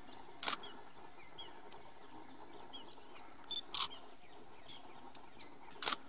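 Small birds chirping faintly and repeatedly in open country, broken by three short, sharp clicks: about half a second in, near four seconds and just before the end.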